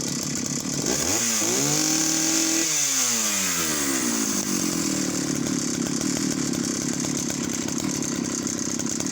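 Vintage Jonsereds 751 two-stroke chainsaw engine idling. About a second in it is revved straight up to peak revs, bouncing off the top, then released about two seconds later and comes straight back down to a steady idle. The engine is fully rebuilt, with a rebuilt Tillotson carburettor.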